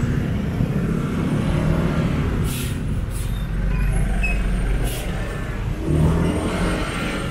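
Motorcycle engine running with road and wind noise while riding, a steady low rumble. Two short hisses cut through about a third of the way in and again past the middle.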